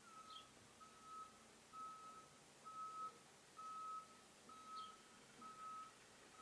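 Faint reversing-alarm beeping: a single steady tone that beeps evenly, about once a second.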